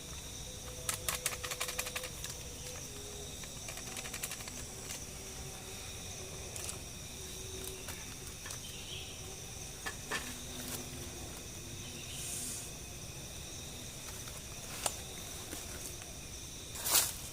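Forest ambience with a steady high-pitched drone of insects such as crickets or cicadas. Scattered dry crackles and clicks break in, with louder crackling near the end.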